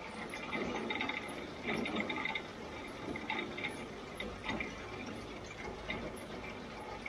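Claas Variant 480 RC round baler's hay pickup running, its tines and feed mechanism giving off an irregular clicking and rattling as hay is drawn in. A low rumble joins about four seconds in.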